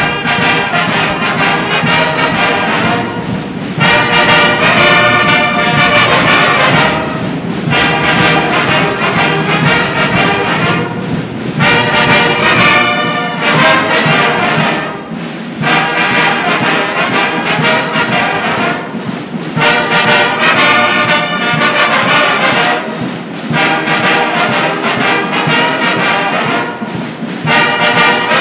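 Brass band playing a slow hymn in phrases of about four seconds, with a brief dip between each phrase.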